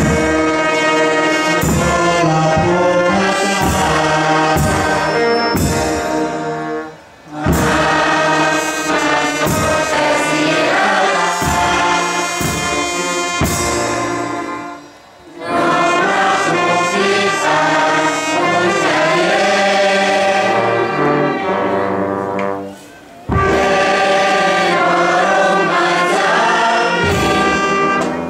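Brass band music with a large crowd singing along, in long phrases broken by brief pauses about every eight seconds.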